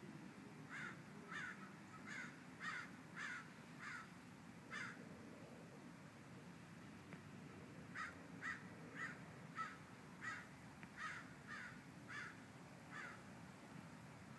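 A bird calling in two runs of short calls about half a second apart, about seven in the first run and about ten more starting some three seconds after it ends, over a faint low background hum.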